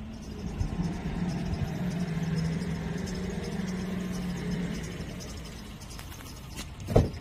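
A vehicle engine humming steadily for a few seconds, then fading, over a low rumble. Near the end comes a single sharp clunk, the minivan's door latch as the door is opened.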